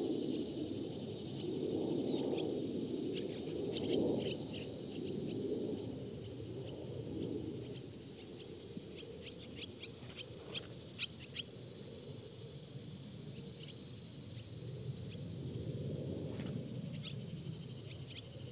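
Barn swallows giving short, sharp chirps as they fly past, with a quick run of them about nine to twelve seconds in, over a low, uneven rumble.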